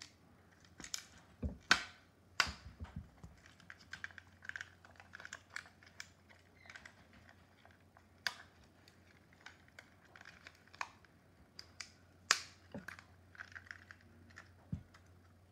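Irregular plastic clicks, taps and rattles as a cordless phone base's opened housing and circuit board are handled and worked apart, with a few sharper knocks a couple of seconds in, about eight seconds in and near twelve seconds.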